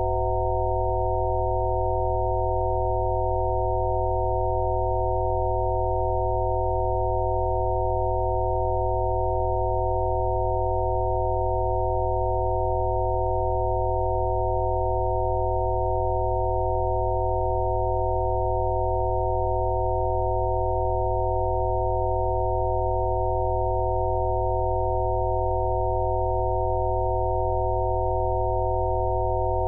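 Electronic sine-wave tones of Rife frequency therapy: several pure tones held together at once, completely steady and unchanging, over a deep steady drone.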